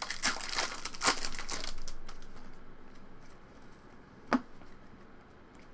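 Trading-card pack wrapper crinkling and crackling as it is torn open, densest in the first two seconds, then quieter handling of the cards with a single sharp click about four seconds in.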